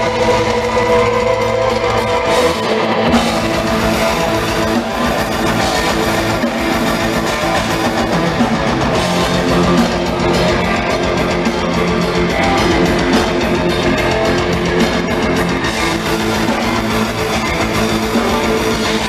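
Heavy metal band playing live, with distorted guitars and a drum kit. Fast, driving drumming comes in about three seconds in.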